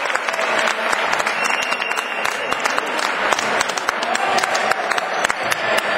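Crowd applauding: many overlapping hand claps, with voices mixed in.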